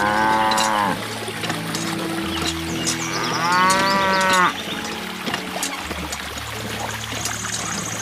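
A cow mooing twice: one long call at the start and another about three seconds in, each dropping in pitch at its end, over background music and trickling water.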